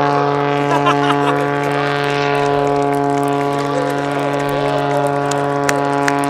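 Aerobatic biplane's piston engine and propeller heard from the ground: a loud, steady drone with an even pitch.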